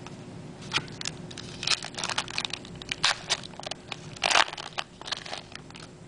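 Trading cards and their pack wrapper being handled: an irregular string of crinkles, rustles and short scrapes, loudest a little past four seconds in.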